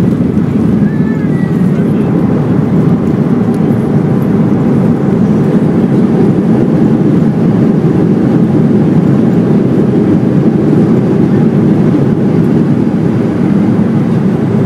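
Cabin noise of a Boeing 737 slowing on the runway just after touchdown, with its spoilers raised: a loud, steady rumble of jet engines and rolling wheels heard through the fuselage.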